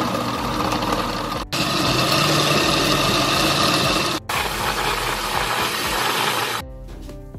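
Countertop blender running at speed, blending grated coconut with water into coconut milk, with two very short breaks; it stops near the end.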